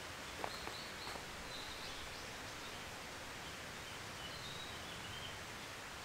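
Steady, faint rush of a river flowing nearby, with scattered high bird chirps over it and two footsteps crunching on gravel in the first second or so.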